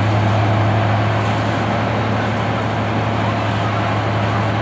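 Class 55 Deltic diesel locomotive with its Napier Deltic two-stroke engines running, a steady low drone that holds even throughout.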